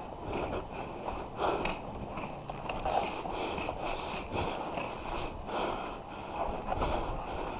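A person breathing hard close to the microphone, with footsteps, in irregular noisy bursts.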